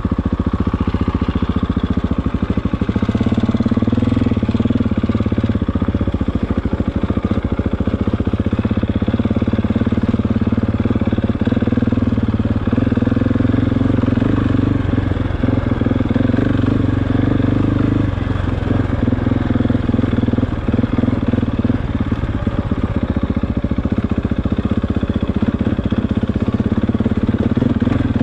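KTM motorcycle engine running at steady revs.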